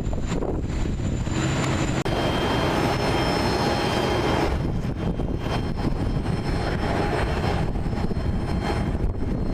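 Jet airliner engine noise, a loud, steady low rumble with a faint high whine in the middle. The sound shifts abruptly about two seconds in.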